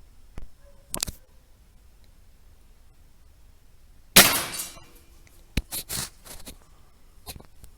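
A single rifle shot about four seconds in, a sharp crack that fades over about half a second. Short sharp clicks and knocks come before and after it.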